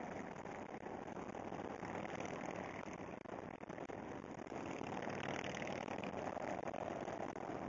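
Steady rush of highway traffic noise: touring motorcycles and cars passing at speed, their engines blended into the hiss of tyres and wind.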